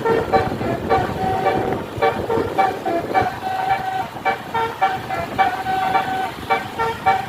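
Basuri telolet horn on a tour bus playing a fast melodic run of short tooting notes that jump between pitches, a few held a little longer.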